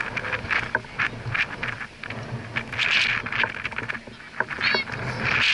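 Sounds of a youth football match: children's high voices shouting and calling out across the pitch, among short knocks and thuds, with wind rumbling on the microphone.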